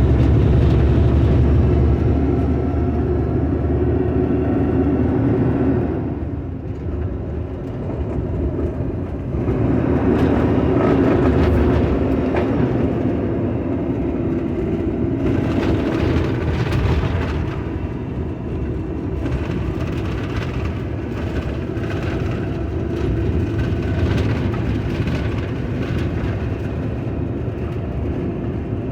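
Kenworth truck's diesel engine running as it drives down a gravel road, with a steady drone, rough rumble and scattered knocks and rattles from the bumps. The sound drops back for a few seconds about six seconds in, then picks up again.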